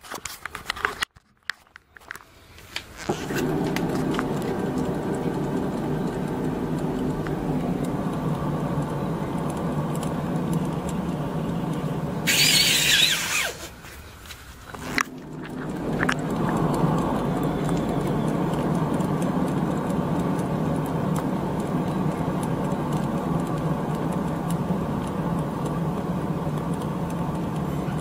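Steady drone from a 2000 Hyundai Accent on the move, setting in a few seconds in, which the owner suspects comes from bad wheel bearings. About twelve seconds in a loud, high squeal cuts in for about a second.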